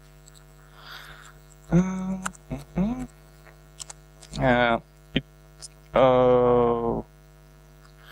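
Steady electrical mains hum throughout, with a man's voice making a few wordless hesitation sounds over it, the longest a held 'mmm' of about a second near the end, and a single click in between.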